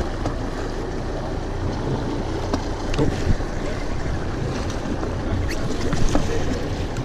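Wind and sea noise aboard a small open boat: a steady rush of wind on the microphone and waves washing against the hull, with a couple of sharp knocks, one about three seconds in and one near the end.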